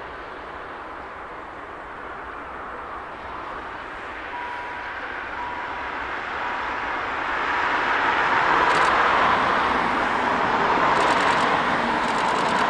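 Steam train hauled by steam locomotives Hv3 995 and Tv1 933 approaching, its running noise growing steadily louder, with a few sharp clicks near the end.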